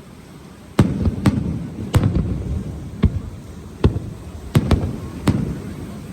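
Aerial fireworks shells bursting: about eight sharp bangs in six seconds at uneven spacing, each trailing off in a low rumble.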